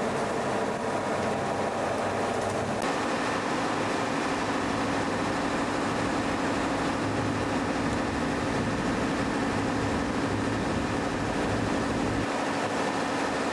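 Steady engine drone with rushing noise, like a vehicle or vessel under way. The sound shifts slightly about three seconds in.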